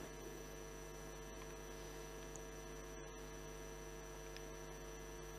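Faint, steady electrical mains hum from the microphone and sound system, with nothing else heard.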